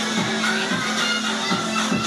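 Background music with a steady bass note and a repeating beat.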